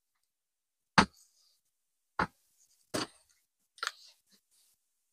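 Four short, sharp knocks and clicks about a second apart as a brass scabbard fitting and a cordless drill are handled and set down on a workbench.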